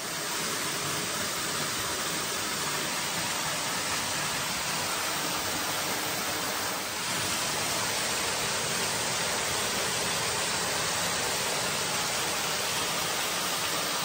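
Backpacking canister stove burning with a steady rushing hiss.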